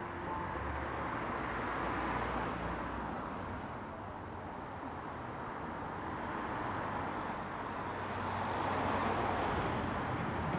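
City street traffic: cars driving past on the road, with the noise swelling twice as vehicles pass.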